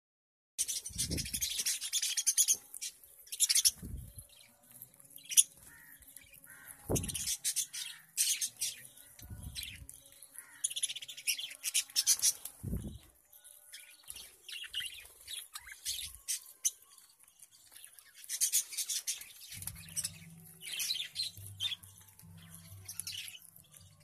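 A flock of budgerigars chirping while they feed, in dense irregular bursts of high chirps. A few short low thumps sound in the first half, and a faint steady low hum comes in near the end.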